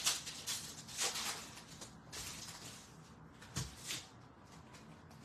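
Hockey trading cards handled and flipped through by hand: short papery swishes and slaps of card stock, the sharpest at the start, about a second in and again around three and a half seconds in, with quieter shuffling between.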